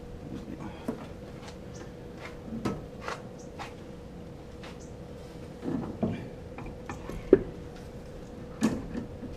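Scattered clicks, knocks and clunks of tools and parts being handled, with one sharp knock near the end, over a faint steady hum.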